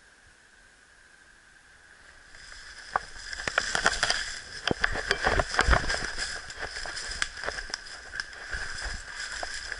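Footsteps through dry fallen leaves and brush: irregular rustling and crackling, with dull thuds of the feet, starting about two and a half seconds in after a faint hiss.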